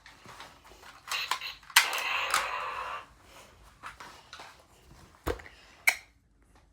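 Plastic toy guns being handled: scattered clicks and clatter, with a louder rustling, rattling burst about two seconds in and two sharp clicks near the end.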